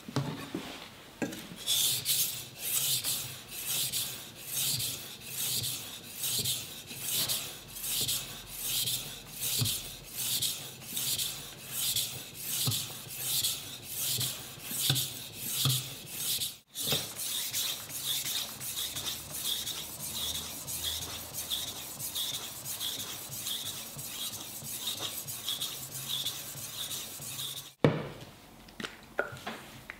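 Steel knife blade scraped back and forth across a wet 1000-grit water stone, a rasping stroke about twice a second, to smooth the edge's micro-serrations after the bevels were set. About halfway through the strokes turn quicker and lighter, and a sharp knock comes near the end.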